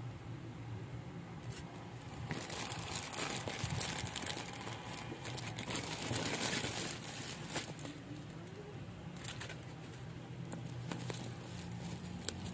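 Plastic parcel packaging crinkling and rustling as it is handled and unwrapped. It is loudest around the middle, with a few sharp crackles later on.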